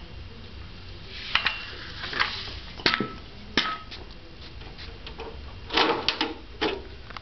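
White metal tube side frames of a three-tier trolley knocking and clinking as they are handled and laid down on the carpet: a series of sharp knocks, a few with a short metallic ring.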